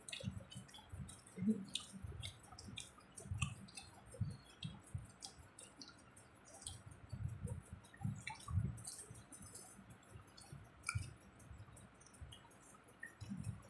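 Several people eating fuchka (pani puri) fast: crisp puri shells cracking and being dipped in water, with wet chewing and many small sharp clicks throughout.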